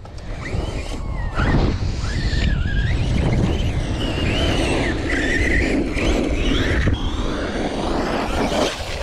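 Traxxas Sledge RC monster truck's brushless electric motor and drivetrain whining, the pitch rising and falling as the throttle is worked, over a steady low rumble.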